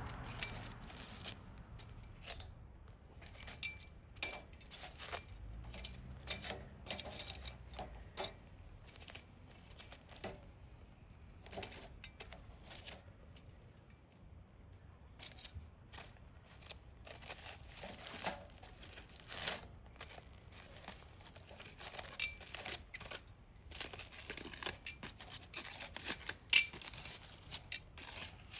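Hardwood fire and embers crackling in a fire pit: irregular sharp snaps and pops, some close together and some spaced out, with one louder pop near the end.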